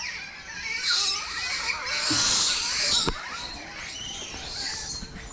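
High, short animal squeaks and chirps, with a burst of crisp rustling about two seconds in.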